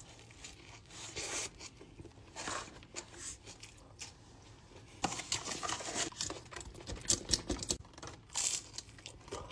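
Paper fast-food wrapping crinkling and rustling in irregular bursts as a McDonald's meal is handled, louder about halfway through and again near the end.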